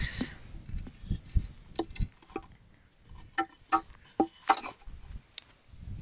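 Scattered light taps, clicks and knocks from handling a white PVC pipe and a wooden block, with a few dull low thumps about a second or two in.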